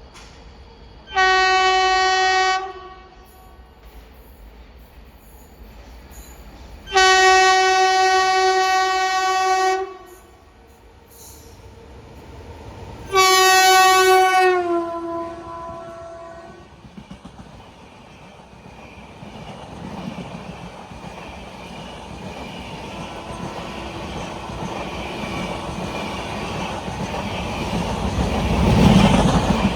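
Rajdhani Express locomotive horn sounding three blasts: a short one, a longer one, and a third that falls in pitch near its end. Then the train runs through the station at speed without stopping, with wheel noise and clatter growing louder towards the end.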